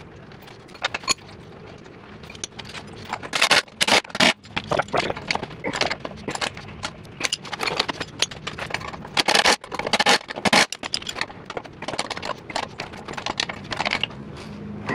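Steel bolts, washers and nuts being fitted into a flail mulcher's bearing carrier with a 19 mm socket and open-end wrench: irregular metallic clicks, clinks and scrapes, sparse at first and dense from about three seconds in.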